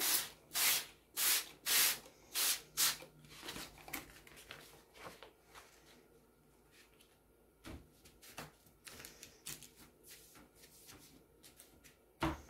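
Plastic trigger spray bottle spritzing about six times in quick succession, each a short hiss. Then quieter rustling and rubbing of paper being pressed down by hand, with one more spritz near the end.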